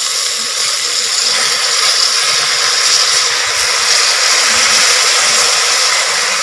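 Raw chicken pieces sizzling in hot oil in a pan, a steady loud hiss that grows a little stronger after the first second or so.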